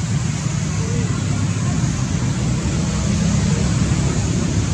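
Steady low rumble with an even hiss above it, with no distinct events.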